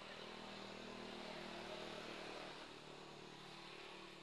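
Faint engine hum of a distant motor vehicle, swelling to its loudest about halfway through and then easing off.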